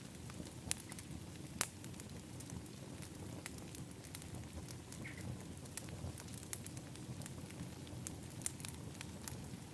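Wood fire in an outdoor fire pit crackling, with irregular sharp pops and snaps over a steady low rumble; one of the louder pops comes about a second and a half in.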